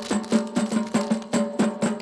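Percussion for an Acehnese seated group dance: hand-beaten drums and hand claps striking together in a quick, even beat of about four strikes a second, each hit ringing with a low drum tone.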